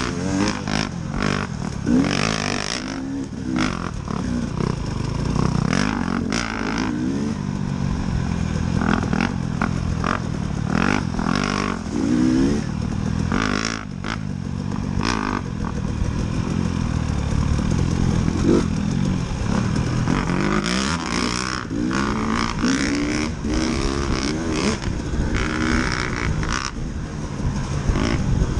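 KTM 300 two-stroke dirt bike engine revving up and down over and over as the throttle is worked on a rough trail, with frequent short knocks and rattles from the bike over bumps.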